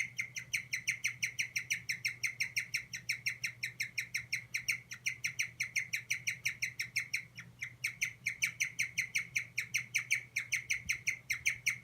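Guinea pig squeaking in a fast, even series of short high squeaks, about six a second, with a brief break about seven and a half seconds in. The owner takes this repeated 'kyu kyu kyu' call for a sign that the guinea pig is stressed.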